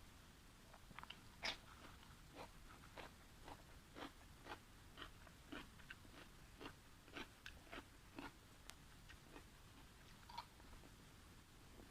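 A person chewing a mouthful of food with the mic close, making soft wet smacking clicks of the mouth about twice a second.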